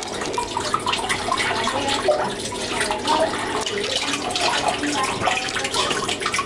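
Water running and splashing steadily in a turtle tank, with a bubbling, gurgling texture.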